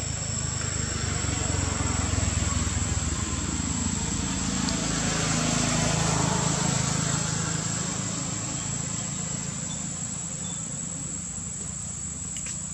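Steady high-pitched drone of insects (crickets or cicadas), over a low rumble that swells and fades in the middle.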